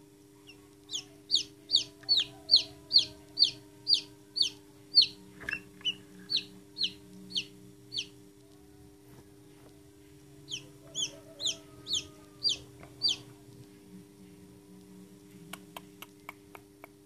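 Newly hatched chicken chick peeping: a run of about fifteen high, quick peeps, about two a second, each falling in pitch, then after a pause of a couple of seconds about six more. A few sharp clicks come near the end.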